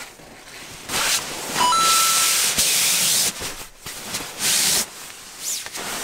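Pertex Quantum nylon shell of a down sleeping bag rustling and swishing as it is pulled out of its mesh stuff sack and spread out: a long swish starting about a second in, then a shorter one past the four-second mark.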